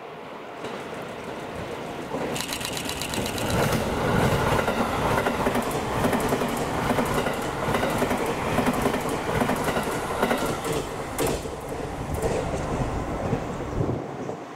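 A train running past close by: the noise builds about two seconds in, stays loud with rapid, regular clicking, then drops away near the end.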